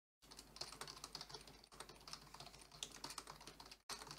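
Typing on a computer keyboard: a rapid, irregular run of key clicks with a brief pause near the end.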